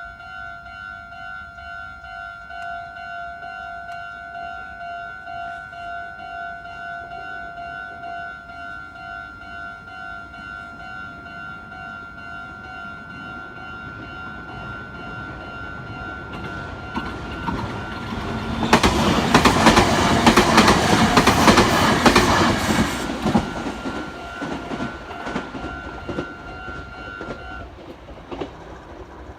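Japanese level-crossing warning bell ringing in a steady, rapidly repeating ding. A Meitetsu 9500-series electric train comes up and passes loudly about two-thirds of the way through, its wheels clattering over the rail joints, then fades away. The bell stops near the end.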